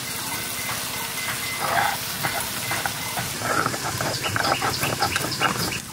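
Dry-roasted cumin seeds being ground on a stone grinding slab (sil-nora), the hand stone scraping back and forth in quick repeated strokes, stone on stone. The strokes grow busier about halfway through.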